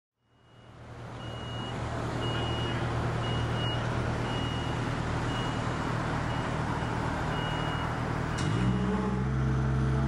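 A truck engine running with a reversing alarm beeping roughly once a second over it. Near the end the engine note steps up and grows louder.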